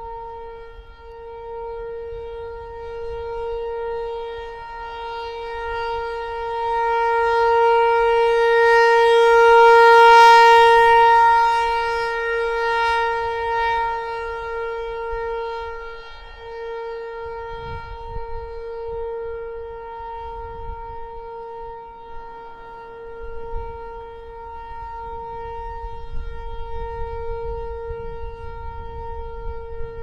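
American Signal Tempest T-128 outdoor warning siren sounding a steady tone during its monthly test. The tone holds one pitch, swells louder and brighter about a third of the way in as the rotating horn sweeps toward the recorder, then fades back. Wind rumbles on the recorder, most noticeably in the second half.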